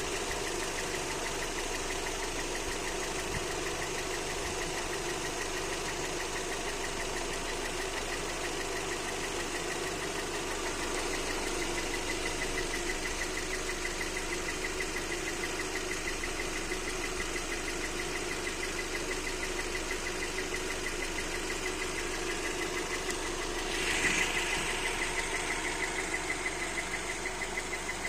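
Car engine idling after a full rebuild, with a fast, even ticking or knocking over its steady running: the strange noise whose cause the owner is asking about. About 24 seconds in there is a brief louder rush of noise, after which the ticking stands out more plainly.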